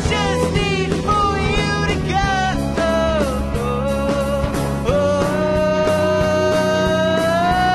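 Indie folk band playing live: guitars, bass, drums and violin, with a melody line that wavers over the first few seconds and then settles into one long held note, which steps up slightly near the end.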